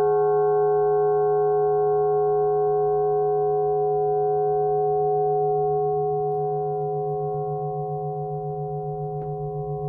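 Flat metal bell (bilo) ringing out after a strike, its several overtones held steady and slowly fading. Over the last few seconds the low tone wavers quickly in loudness, and a fresh strike lands right at the end.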